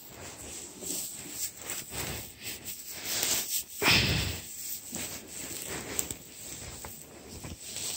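Dry hay rustling and crackling in irregular bursts as flakes are pulled off a bale by hand.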